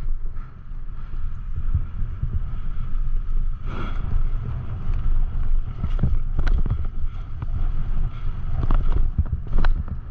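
Mountain bike riding a dirt trail in heavy wind: a steady low rumble of wind buffeting the microphone, with a few sharp clicks and rattles from the bike over the ground.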